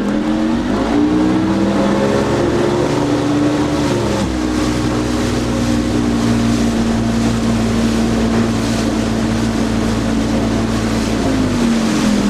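Speed boat engine at full throttle, its revs climbing as the hull climbs over its bow wave onto the plane. About four seconds in the throttle is eased back and the engine settles to a steady cruising note, and near the end the revs fall away as the boat slows.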